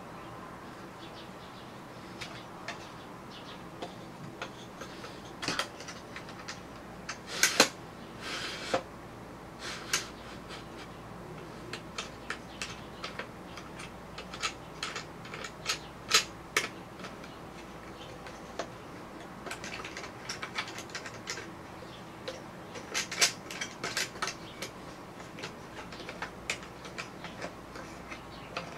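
Bamboo parts of a laptop desk clicking and knocking as hands handle and fit the tilting top's wooden support arm: scattered sharp taps throughout, with the loudest knocks about a quarter of the way in and another busy run of clicks past the two-thirds mark.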